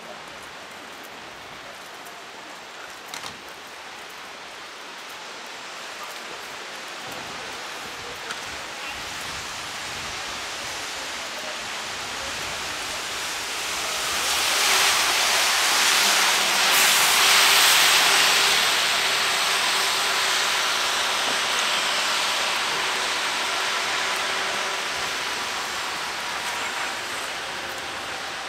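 Heavy rain falling, a steady hiss. About halfway through, a louder rush swells up with a faint hum in it, then slowly fades back.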